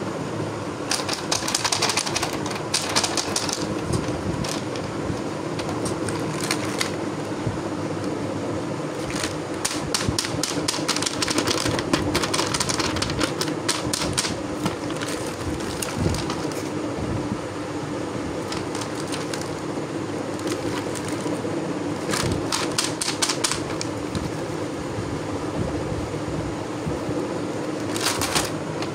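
Hands handling a cardboard toy box and pressing on its clear plastic window, giving several runs of rapid crinkly clicking and crackling over a steady low background hum.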